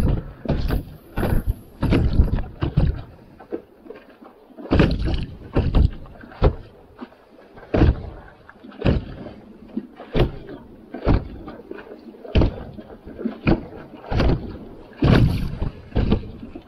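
Kayak paddle strokes in the water, a short dip-and-splash about once a second, with a brief pause a few seconds in.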